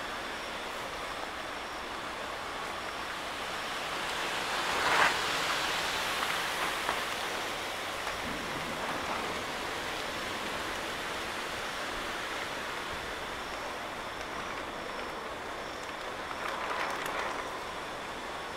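Rain falling steadily during a thunderstorm, an even hiss, with a brief louder rush about five seconds in and a smaller one near the end.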